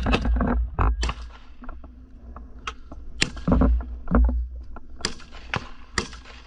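Rifle fire in a trench: a rapid string of shots ends about half a second in, followed by scattered single shots, some sharp and close, others fainter, over a low rumble of wind and handling noise on the body camera.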